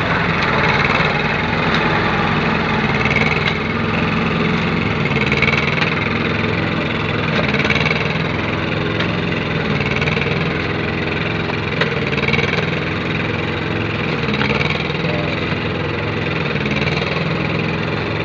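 Small engine of a concrete kerb-extruding machine running steadily while it is pulled along, forming a kerb from fresh concrete.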